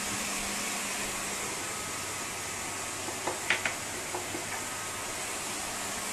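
Chicken pieces sizzling gently in red wine in a frying pan over a turned-down gas flame: a steady hiss over a faint low hum. A few light clicks and taps come about three and a half seconds in.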